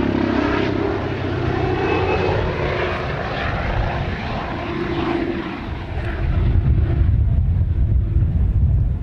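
RAH-66 Comanche helicopter flying past and away: its rotor and engine sound falls in pitch as it goes by and then fades, and a strong low rumble takes over about two-thirds of the way through.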